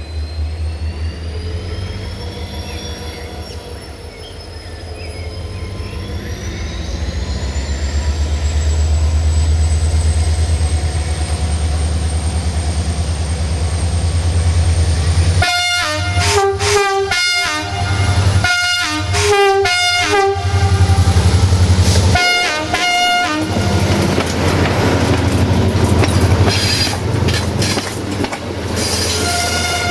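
CFR Class 65 diesel locomotive approaching with its engine running, a steady low hum that grows louder under a faint high whine rising in pitch. From about halfway it sounds a series of short horn blasts as it comes alongside, and then its wheels and the coaches clatter past over the rail joints.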